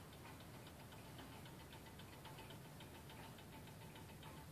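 Antique French Vincenti 8-day cartel wall clock ticking quickly and evenly, several faint ticks a second.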